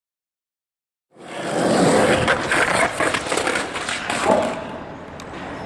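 Silent for about a second, then skateboard wheels rolling hard on rough concrete with repeated clacks and scrapes of the board, and a loud knock a little past four seconds in as the skater slams and the board clatters away.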